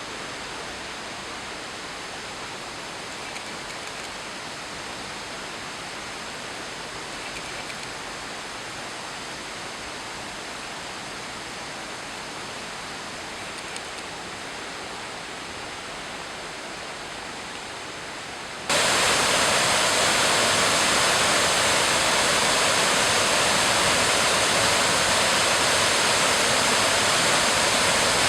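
Waterfall's falling water, a steady rush of noise. About two-thirds of the way through it jumps suddenly much louder and brighter and holds there.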